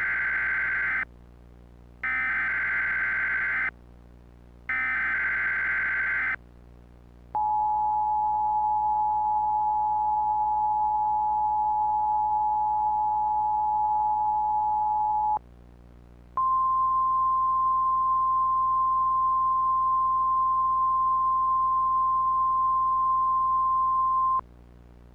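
Emergency Alert System signal opening an alert broadcast: three short bursts of digital SAME header data tones, then the two-tone EAS attention signal held for about eight seconds, then after a brief gap the single steady NOAA Weather Radio alert tone for about eight seconds, which cuts off near the end.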